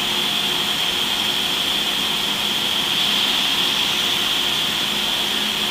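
Amtrak HHP-8 electric locomotive standing with its equipment running: a steady, loud hiss with a faint low hum underneath.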